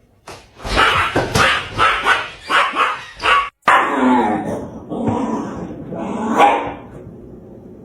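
A dog barking in a rapid run of short barks, then, after an abrupt cut, longer wavering pitched sounds that fade out near the end.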